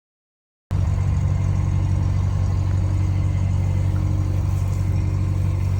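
Sawmill's engine running steadily at idle, a low, even drone that cuts in suddenly just under a second in.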